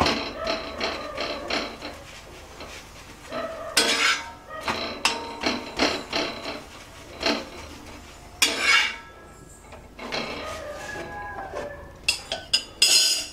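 Flat steel spatula pressing and turning a chapathi on a hot black tawa, clinking and scraping against the pan in repeated sharp strikes. There is a cluster of louder clinks near the end.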